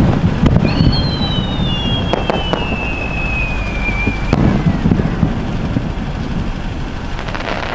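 Fireworks display: aerial shells bursting with booms and sharp bangs over a continuous low rumble. A high whistle falls slowly in pitch for about three seconds and is cut off by a bang about four seconds in.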